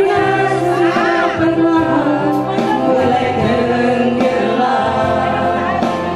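Music: a singing voice holding long, wavering notes over steady accompaniment.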